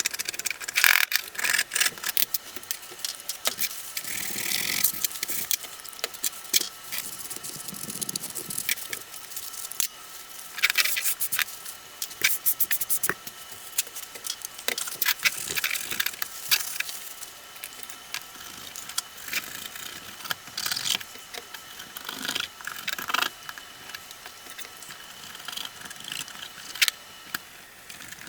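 Hard, caked dust being scraped off a graphics card's fan and heatsink with a tool: irregular scratchy strokes and small clicks and rattles. The dust buildup is what may have kept the fan from spinning.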